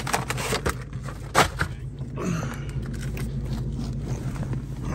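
Another car's engine, a Cobra, idling steadily in the background, with knocks, scrapes and rustling from someone climbing into a car seat and handling the phone; the sharpest knock comes about a second and a half in.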